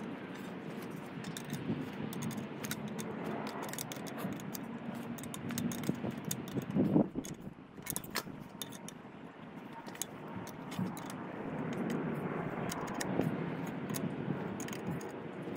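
Small metallic clicks and taps of pliers and an adjustable wrench working a nut on the bolt that fastens a steel blade to its wooden handle, over a steady background noise. A brief louder thump comes about halfway through.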